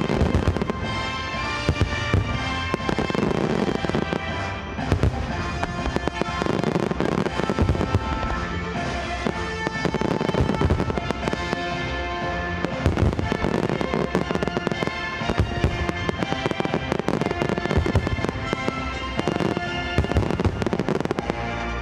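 Fireworks display: many shells launching and bursting in quick succession, sharp bangs following one another with no real pause, over music with sustained tones.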